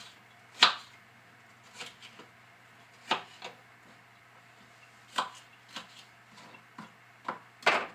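Kitchen knife chopping an onion on a wooden cutting board: a dozen or so sharp knocks of the blade hitting the board, unevenly spaced, with the loudest about half a second in and again near the end.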